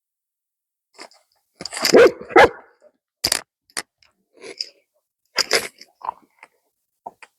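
A dog barking in short separate barks, the two loudest close together about two seconds in, followed by several quieter ones.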